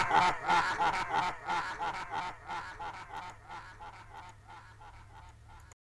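Laughter in short, evenly spaced bursts, about four a second, fading out gradually and cutting off just before the end.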